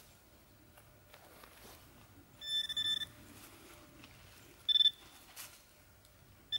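Metal detector giving a pulsing, high-pitched buzzing tone, about half a second long some two and a half seconds in and again briefly near five seconds, signalling metal in freshly dug soil.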